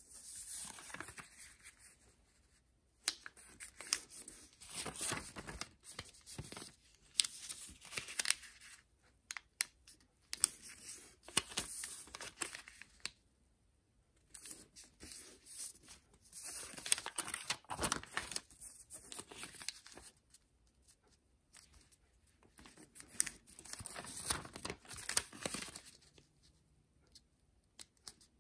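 Origami paper rustling as hands fold and crease it, in irregular bursts a second or two long with short pauses between.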